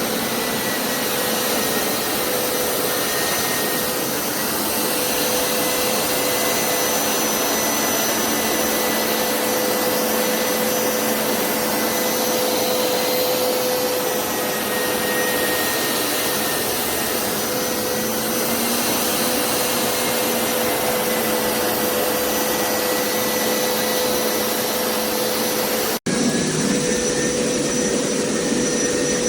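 Hoover PowerScrub XL Pet carpet cleaner running steadily, its suction motor giving a high whine over a steady rush of air. The sound drops out for a moment near the end and comes back with a slightly different tone.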